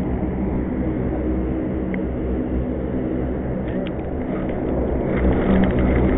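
A steady low rumble with a droning hum, with a few faint clicks and taps about four and five seconds in.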